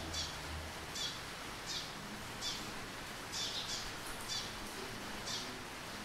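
Eurasian tree sparrow chirping: a run of short, high chirps, one roughly every half second to a second.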